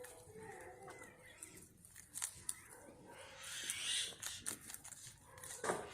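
Rabbits chewing and tearing fresh green leaves: quick crisp crunches with leaf rustling, busiest about three to four seconds in.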